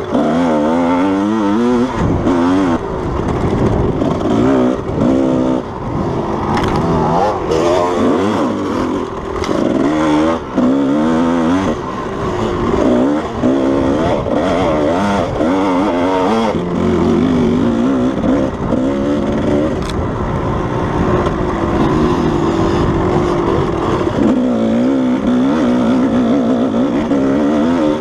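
Kawasaki KDX220's two-stroke single-cylinder engine revving up and down under throttle, its pitch rising and falling every second or two, with a few short knocks.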